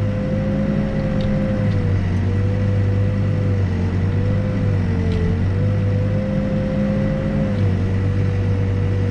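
New Holland B95 backhoe loader's diesel engine running while digging. Its drone swells and eases every second or two as the hydraulics are worked, under a steady whine that wavers slightly in pitch.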